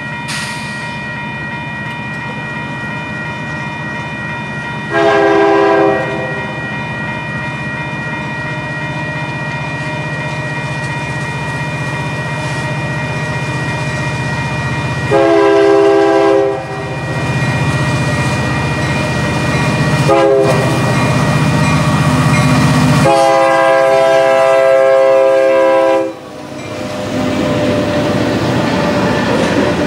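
Union Pacific diesel locomotive horn sounding the grade-crossing signal, long, long, short, long, over the steady ringing of the crossing signal bell. The locomotives' engine rumble builds as they come close, and after the last blast, about 26 seconds in, the rushing clatter of covered hopper cars rolling past takes over.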